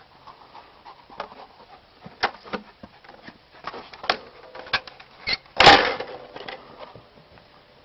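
A loose wooden plank knocking and clattering as a puppy plays on and around it: a run of sharp taps and knocks, with one loud clatter a little over halfway through.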